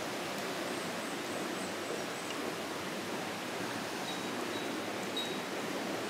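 Mountain stream rushing steadily, an even wash of running water.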